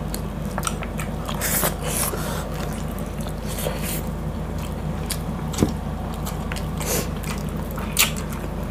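Close-miked eating: wet chewing and smacking mouth sounds with scattered small clicks as two people eat pork and rice with their hands. There are two sharper clicks, one about halfway through and one near the end, over a steady low hum.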